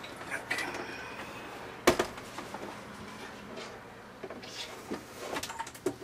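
Handling noise: scattered light clicks and rustling, with one sharp knock about two seconds in and a cluster of clicks near the end.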